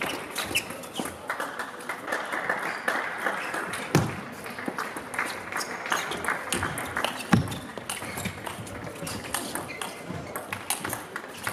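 Table tennis rally: the plastic ball clicking sharply off the paddles and table in quick exchanges, with a couple of heavier thuds about four and seven seconds in.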